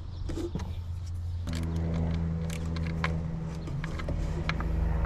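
A vehicle engine starts humming steadily about a second and a half in. Over it come a few light metallic clicks of a ratchet and socket being handled.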